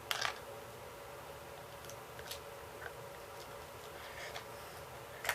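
Faint handling of plastic toy packaging: a short rustle just after the start, then a few light clicks and scrapes, over a faint steady hum.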